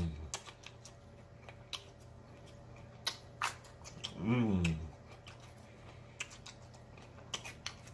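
A person chewing food close to the microphone, with scattered wet mouth clicks and smacks. About four seconds in comes a short hummed "mmm" that falls in pitch.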